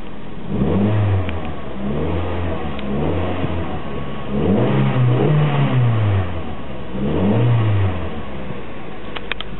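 Mazda Roadster NCEC's 2.0-litre LF-VE inline-four engine being revved with the car standing still, heard from inside the cabin: about five blips of the throttle, each rising and falling back, the biggest and longest around the middle, up to roughly 3,000 rpm. A running check of a used engine whose compression reads an even 15.0 on all four cylinders.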